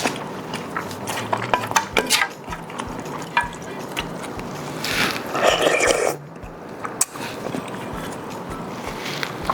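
Close-miked eating sounds: chewing and mouth noises with scattered small clicks, and a longer noisy burst of eating about five seconds in.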